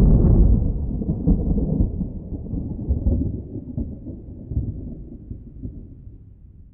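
A deep, thunder-like rumble, loudest at the start, with a few swells, then fading away over about seven seconds.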